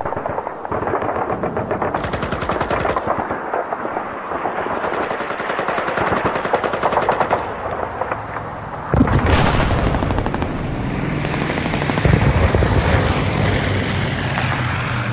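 Battle sound effect of rapid, sustained machine-gun fire. About nine seconds in, a sudden heavier blast and a low steady drone join the firing.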